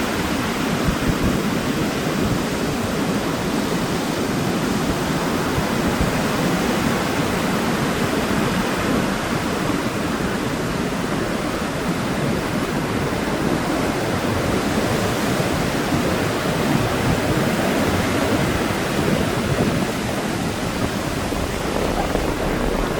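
Sea waves breaking and washing on a sandy beach, a continuous steady surf noise with no distinct single crashes.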